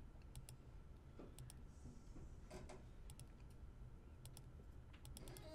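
Faint computer mouse clicks, several in quick pairs, over a low steady hum.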